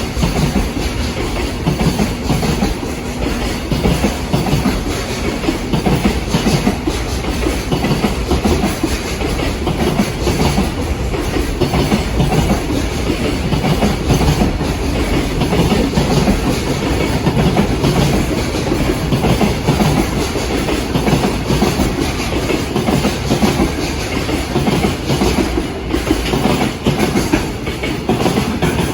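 An electric-hauled container freight train passing on the tracks, its wheels making a steady, loud rumble without a break.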